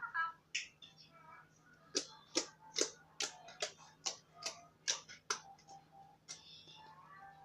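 Background music with a clicking beat, about two and a half clicks a second.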